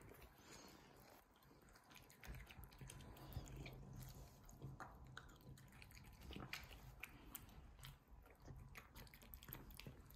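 Domestic cat eating wet cat food from a bowl: faint, irregular small wet chewing clicks that keep on without pause.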